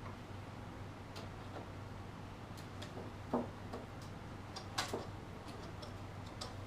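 A few faint, irregular light clicks and taps as a queen cage is fastened to a hive frame with a rubber band, over a low steady hum.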